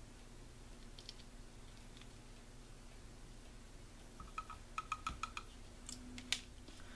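Pigment measuring scoop clicking and tapping against its jar while a scoop of powder is taken and packed. Faint handling, then a quick run of light clicks a little past halfway and a couple more near the end.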